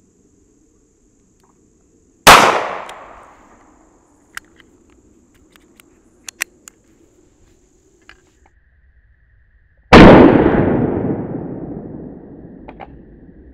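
A .22 Magnum (.22 WMR) rimfire handgun fires once, a sharp report about two seconds in, followed by a few faint clicks. A second gunshot comes about ten seconds in, with a longer fading echo.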